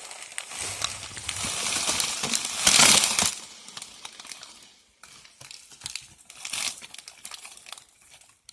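A plastic instant-ramen packet crinkling as crushed dry noodles are shaken out of it into a bowl of hot water, with a loud rush of rustling about three seconds in. Faint crackling and sizzling follows as the noodles settle in the hot water.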